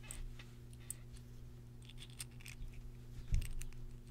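Faint clicks and light scrapes of a small metal vape atomizer's parts being turned and handled in the fingers, with a soft low thump a little past three seconds, over a steady low electrical hum.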